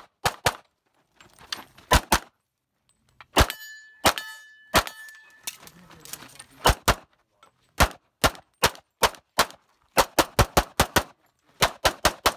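Handgun fired rapidly in a competition stage, about two dozen sharp shots, many in quick pairs and a fast string near the end. A few seconds in, three single shots are each followed by the ringing of a struck steel target.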